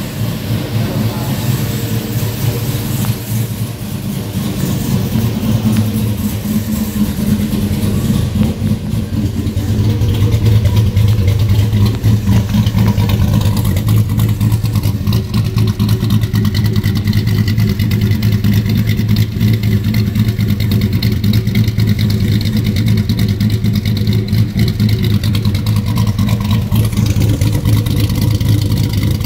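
Chevrolet Silverado SS's 6.0 L V8, fitted with a 228/228 camshaft, idling steadily through the exhaust, a little louder from about ten seconds in.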